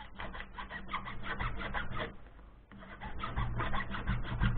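Hand file rasping in quick back-and-forth strokes, about seven a second, on a microwave oven transformer's winding, with a short pause about two seconds in. The filing scrapes through the coating to show whether the wire is copper or aluminium; this winding is copper.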